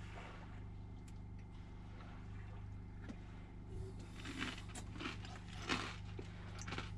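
A man swallowing and chewing salsa drunk straight from a jar, with a few short soft mouth and jar-handling noises from about four seconds in, over a steady low hum.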